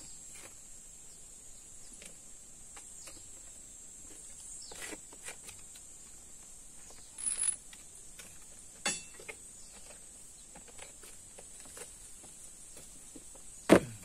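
Scattered light clicks and knocks, with one louder knock near the end, over a steady high-pitched hum.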